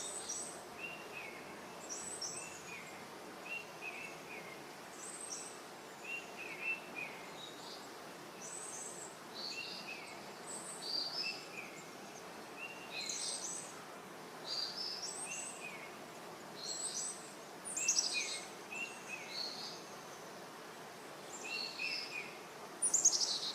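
Several birds calling: short chirps repeated every second or so, with higher, sharper calls among them, over a steady background hiss of open-air ambience.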